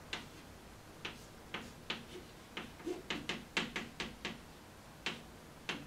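Chalk writing on a blackboard: a run of short, irregular taps and scratches as the chalk strikes and strokes across the board, most closely bunched in the middle.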